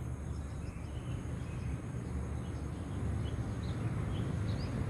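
Birds chirping in short, scattered calls over a steady low outdoor rumble that grows slightly louder about three seconds in.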